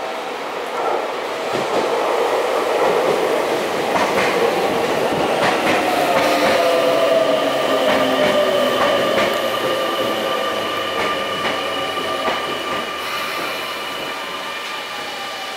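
Sotetsu 8000-series electric train pulling into a station and braking to a stop, its Hitachi IGBT-VVVF inverter whine falling slowly in pitch as it slows, with wheels clicking over rail joints.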